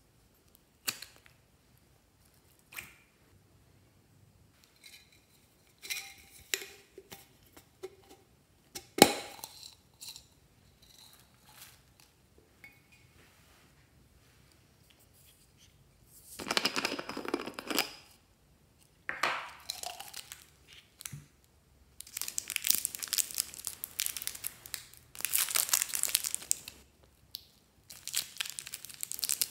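Thin plastic wrapper crinkling and tearing as it is opened by hand, in dense crackly bursts through the last third. Before that, scattered small clicks and taps, one sharper click about nine seconds in, and a short rustle at about sixteen seconds.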